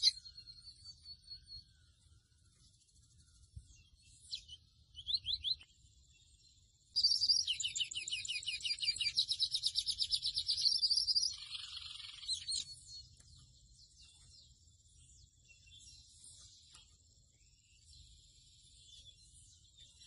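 Pico de plata azul seedeater ('mochuelo') singing: scattered short chirps and quick whistles, then a loud, fast, rapidly repeated warbling run from about seven to eleven seconds in, trailing off into softer chirps. A thin steady high tone runs behind from the middle onward.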